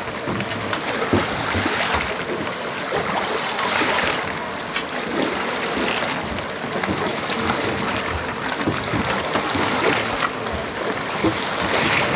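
Water splashing and lapping around a bamboo raft being poled along a river: a steady rushing with many small splashes and knocks scattered through it.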